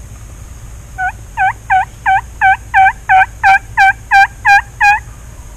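A run of about a dozen turkey yelps, roughly three a second, the first few quieter and the rest loud, stopping after about four seconds.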